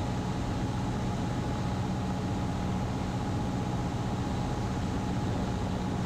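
Cessna 150's Continental O-200 four-cylinder engine and propeller droning steadily in flight, heard inside the cabin, with an even low hum under a constant noise.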